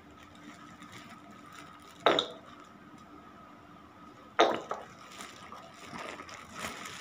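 Two sharp knocks about two seconds apart, the second followed by a few smaller clicks, over a faint steady hum: handling noise from objects being moved and set down.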